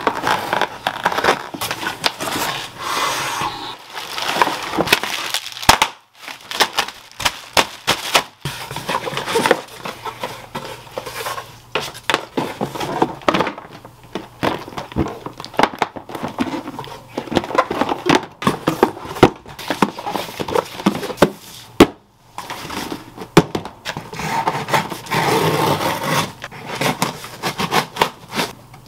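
Cardboard boxes being opened by hand: a knife scraping through packing tape, flaps and contents rustling and scraping, with many sharp knocks as things are handled on the desk.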